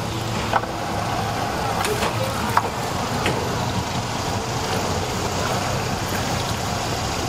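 Boat's outboard motor running steadily at low speed as the boat manoeuvres, with a couple of sharp clicks early on.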